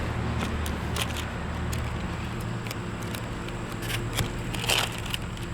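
Body filler and hardener being scooped up and smeared on a loose sheet of mixing paper: scattered light scrapes, clicks and paper crinkles over a steady low hum.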